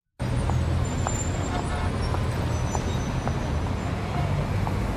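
Steady low rumble with a hiss of outdoor background noise, broken by a few faint, short, high chirps.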